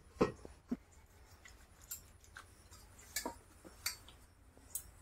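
Faint, irregular clicks and light taps from hands and a small kitchen container being handled while oil is taken into the palms; the loudest comes about a quarter second in.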